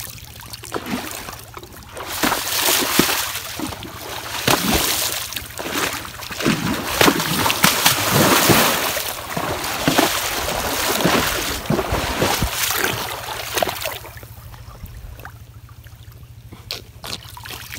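A horse wading through shallow water, its legs splashing and sloshing with each stride. The splashing eases off near the end.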